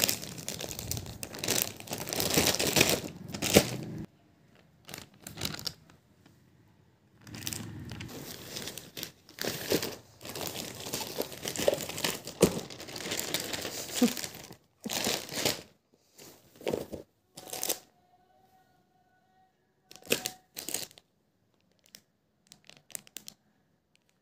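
Plastic courier mailer bag being torn open and handled, crinkling and rustling, with the plastic packets inside rustling as they are shaken out. The crinkling comes in long stretches at first, then in short separate rustles with pauses.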